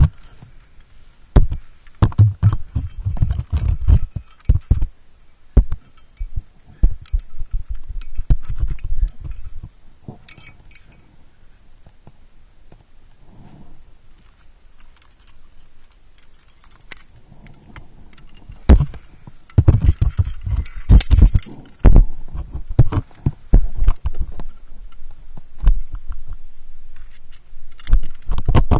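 Climbing gear clinking and jangling on a climber's harness, mixed with knocks, scrapes and bumps against the rock close to the microphone. The noise comes in irregular flurries: busy near the start and again about two-thirds through, quieter in between.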